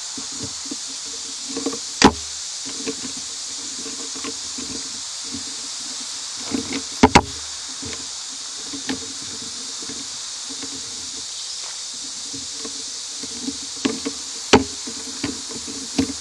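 Handling of a camera on a tripod: several sharp knocks and clicks, the loudest a double knock about seven seconds in, over a steady high hiss.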